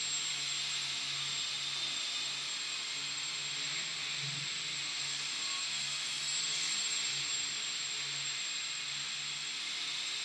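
Electric motor and propeller of a control-line GeeBee model plane in flight: a steady high whine and hiss, with a low buzz pulsing about once a second.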